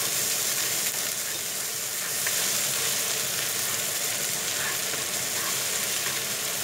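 Garlic paste sizzling in foaming melted margarine in a nonstick frying pan, stirred with a wooden spatula: a steady hiss of frying.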